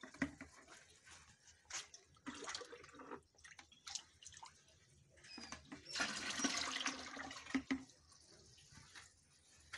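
Water splashing and pouring in irregular bursts as a plastic bowl scoops water from a concrete tank and tips it out; the splashing is loudest for about two seconds a little past the middle.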